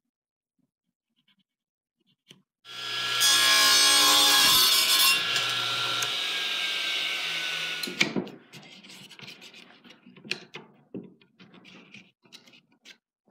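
Electric power saw starting up and cutting a strip of oak for about five seconds, then stopping with a sharp knock. After it, light knocks and rubbing of wood pieces being handled.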